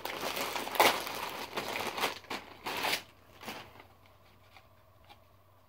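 Clear plastic zip bag crinkling and rustling as it is handled and pulled open, loudest just under a second in. The crinkling stops about three seconds in, leaving only a few faint handling sounds.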